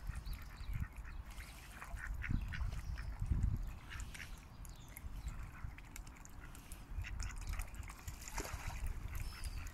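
Mallard ducks quacking and calling in short bursts throughout, with a low rumble underneath that swells twice, about two and three and a half seconds in.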